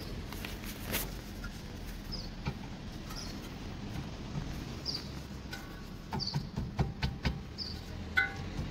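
Light metallic clicks and knocks from handling a brake caliper as it is fitted back over the pads, growing busier in the last few seconds. A steady low hum lies underneath, and short high chirps recur about once a second.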